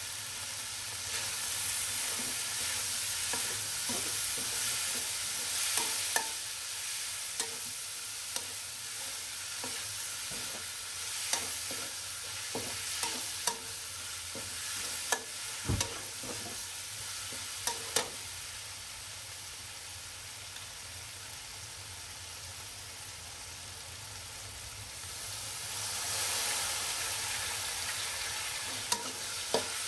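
Stir-frying in a wok: eggplant and minced pork sizzling steadily while a spatula scrapes and clacks against the wok at irregular moments. The sizzle dies down in the middle and swells again near the end.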